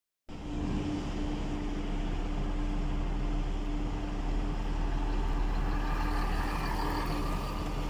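Scania 124L 420 truck's 12-litre straight-six diesel engine running steadily at low speed as the truck reverses, a steady low rumble with a constant hum over it.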